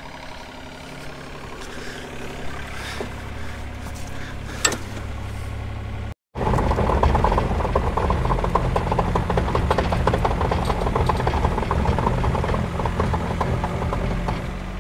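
Mini digger's diesel engine running: steady and moderate at first, then after a cut louder and busier, with a rapid pulsing, as the boom holds a suspended engine. A single sharp click sounds a little before halfway.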